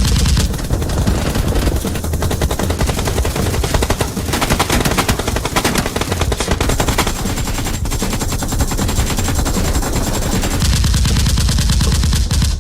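Rapid automatic gunfire, many sharp shots in quick succession overlapping into a continuous stream.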